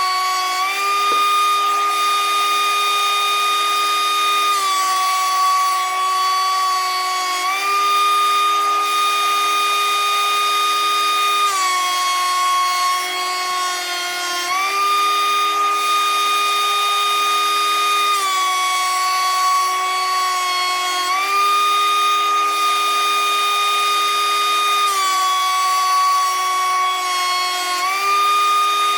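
DeWalt DW735 13-inch thickness planer running and planing rough-sawn red oak, a high steady whine with a hiss of cutting. Its pitch sags and recovers every few seconds as the cut loads and unloads the motor.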